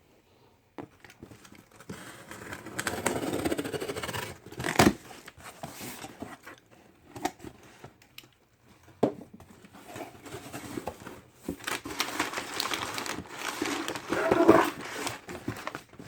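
Action figure packaging being opened by hand: cardboard box and plastic being scraped, torn and crinkled, with scattered clicks and two sharp snaps, one about five seconds in and a louder stretch near the end.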